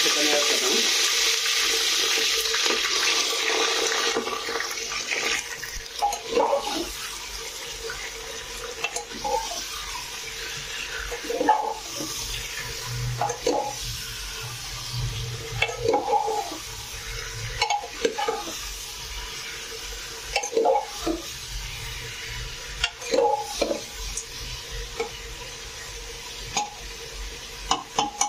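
Raw chicken pieces dropped into hot mustard oil in an aluminium pressure cooker sizzle loudly for about the first four seconds, then settle to a lower sizzle as they start to fry. A metal ladle stirs them, knocking and scraping against the pot every second or two.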